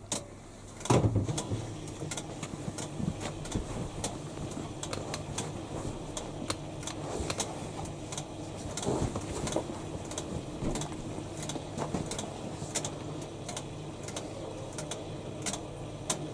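Two washing machines starting their cycles: a loud clunk about a second in, then a steady low hum with irregular mechanical clicking, a few clicks a second, throughout.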